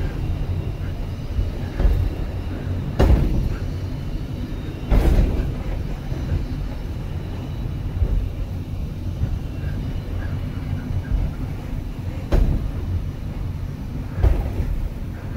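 Funicular cable car running downhill on its rails: a steady low rumble, broken by several sharp knocks from the wheels on the track at uneven intervals.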